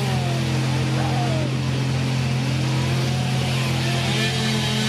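A small engine running steadily at one even pitch, with a regular low pulsing beneath it, and faint voices calling over it.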